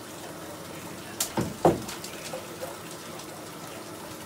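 A bath bomb dropped into a filled bathtub: a sharp knock, then a splash and a plop about a second and a half in, over a steady hiss of water.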